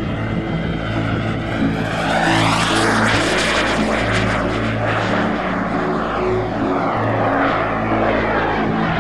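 Radio-controlled model aircraft flying past: a wide rushing engine noise swells about two seconds in, peaks and slowly eases off, over a steady low drone.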